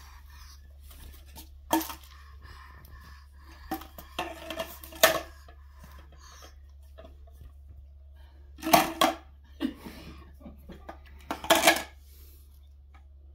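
Hard plastic pieces of a baby's ring-stacking toy knocking and clattering together, in four short bunches of sharp clacks.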